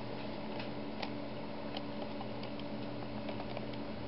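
A steady low electrical hum with faint, irregular light clicks scattered through it.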